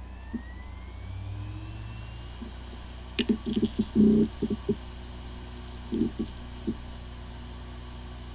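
Hard drive with corrupted disk firmware powering up: a rising whine over the first two seconds or so over a steady hum, then a rapid flurry of clicks and knocks about three to five seconds in and a few more around six seconds.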